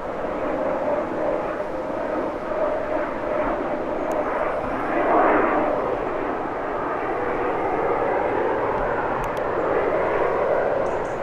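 Jet engines of an Embraer E190-E2 airliner flying over low, a continuous rushing roar that swells to its loudest about five seconds in.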